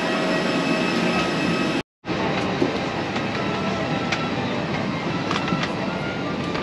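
Steady machine noise with a thin high whine over it. It drops out for a moment about two seconds in, then carries on much the same.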